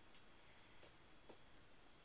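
Near silence: quiet room tone with a faint, steady high-pitched whine and three faint soft ticks.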